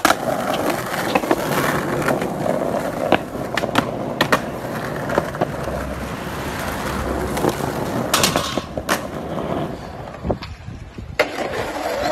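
Skateboard wheels rolling over rough asphalt, a steady gritty rumble, broken by several sharp clacks of the board's deck and tail striking the ground.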